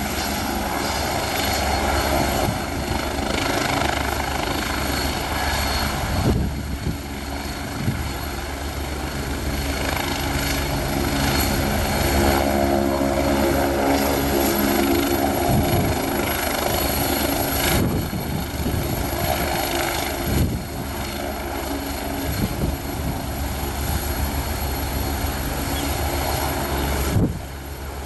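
Agusta A109E Power twin-turbine helicopter running on the ground with its main rotor turning: a steady high turbine whine over the rotor and engine noise.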